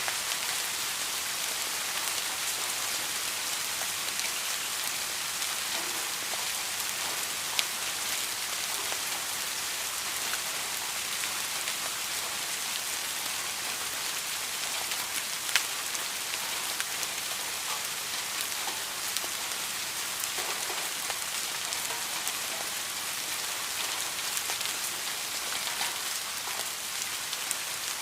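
Steady rain falling, an even hiss with scattered sharper drop hits, two of them louder about a third and halfway through.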